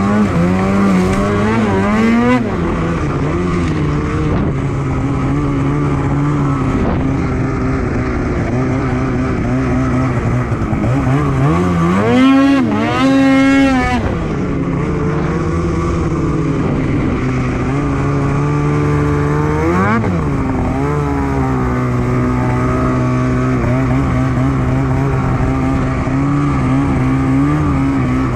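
Polaris Switchback Assault 850 snowmobile's two-stroke engine running at a steady speed, revving up and back down three times: near the start, about twelve seconds in (the highest and loudest), and about twenty seconds in.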